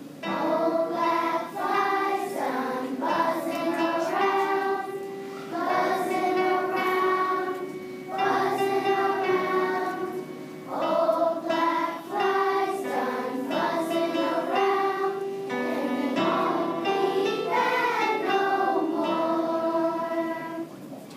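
Third-grade children's choir singing a song together, in phrases a few seconds long with short breaks between them.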